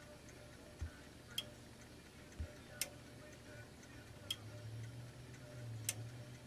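Faint, sharp clicks of a TECKIN smart socket's internal relay as it is switched on and off from a phone app, about four clicks roughly a second and a half apart, with a couple of duller taps in between.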